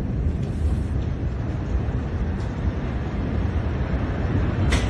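Steady low rumble in the aftermath of a large explosion, with one short sharp click near the end.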